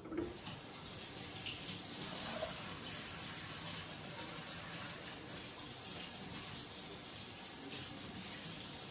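Kitchen sink tap running steadily as hands are washed under the stream.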